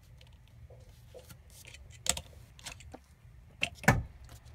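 Light clicks and taps of a small die-cast toy truck being handled and moved on a tabletop display, with a louder knock about four seconds in.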